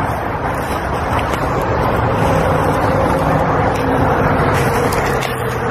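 Highway traffic: a vehicle going by with steady tyre noise and a faint engine tone that slowly falls in pitch, with the light crunch of footsteps in dry leaves.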